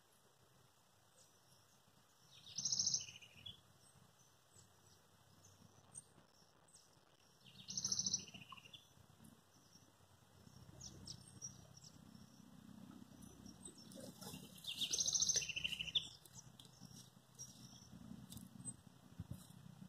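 A bird calling outdoors: a short, rapid, high-pitched trilled call given three times, a few seconds apart, the last one longer, over a faint background with a low rumble building from about halfway through.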